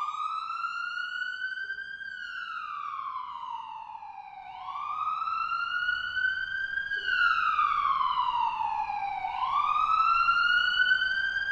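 Emergency-vehicle siren sound effect with a slow up-and-down wail. It climbs for about two seconds, falls for about two and a half, and runs through about two and a half cycles. It cuts in cleanly after a moment of silence, as an edited-in effect would.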